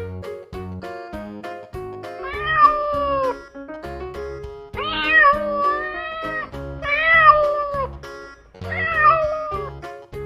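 Domestic cat meowing four times, each drawn-out call falling in pitch at the end, over background music with a steady beat.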